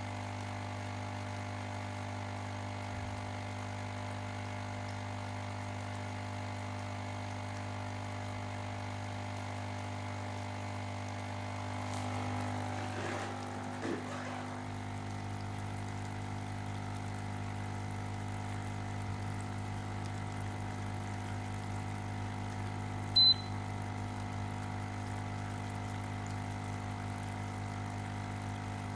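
Ozone generator running with a steady electrical hum and buzz. A brief, loud, high-pitched blip comes about two-thirds of the way through.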